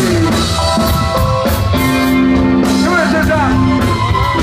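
Live band playing: drums, bass guitar and keyboard under singing, with chords held for a couple of seconds in the middle.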